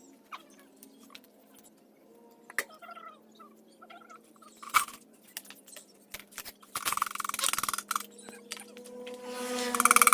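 Scattered sharp clicks and knocks, with a short buzzing sound about seven seconds in. Near the end a loud, steady noise starts up, like a hiss or a running machine.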